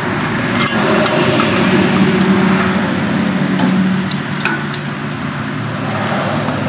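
A few sharp, scattered metallic clicks and taps from hand tools and screws as a plate is screwed back onto a small-engine carburetor. They sit over a steady low background hum.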